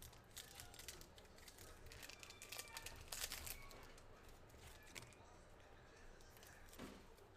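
Faint crinkling of a foil trading-card pack wrapper and cards being handled, with scattered small clicks, busiest about two to three seconds in.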